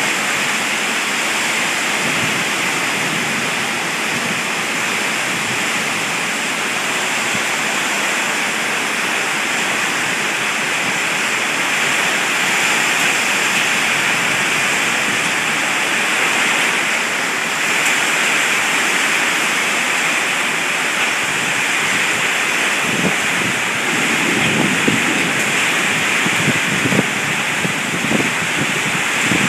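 Heavy rain of a thunderstorm pouring steadily, a dense even hiss. Near the end, louder, uneven splashing and drumming of drops joins in.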